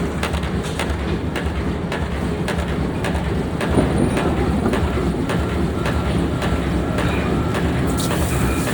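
Pneumatic forging air hammer striking repeatedly, about two blows a second, over a steady low machine hum.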